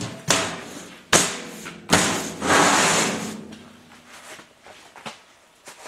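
Unhinged sheet-metal toolbox lid being opened and set back down: three sharp metal clunks in the first two seconds, then about a second of metal scraping on metal, dying away after.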